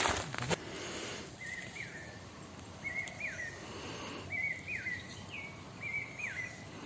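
A forest bird calling four times, each call a short held whistle ending in a quick wavering downward flick, evenly spaced about a second and a half apart. A few footsteps crunch at the very start.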